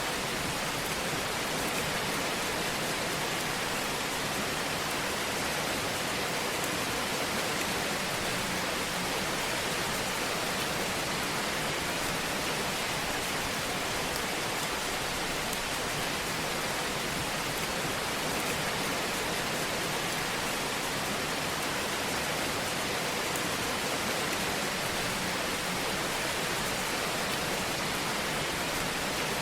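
Fireplace fire burning with a steady, even hiss and faint scattered crackles.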